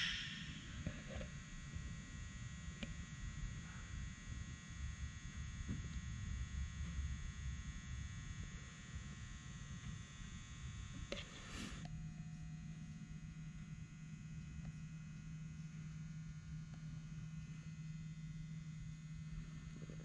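Quiet room tone with a low rumble. A little past halfway there is a single click, and then a steady low electrical hum sets in and holds.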